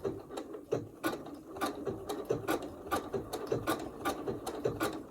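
Domestic sewing machine sewing a blanket stitch slowly, its needle mechanism clicking about three times a second with each stitch.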